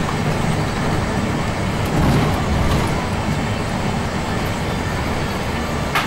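Bus engine and road noise heard from inside the cabin while driving: a steady low rumble that swells briefly about two seconds in.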